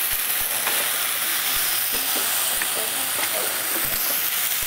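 Vegetable stuffing for mushroom caps sizzling steadily in a hot sauté pan while it is stirred with a heat-resistant spatula.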